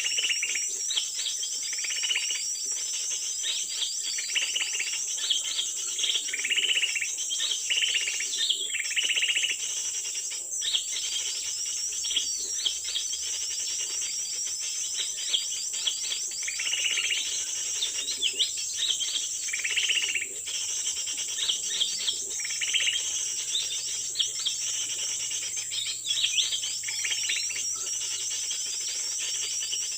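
Small forest birds chirping and calling busily, with a short call repeating about every two seconds, over a steady high-pitched insect drone.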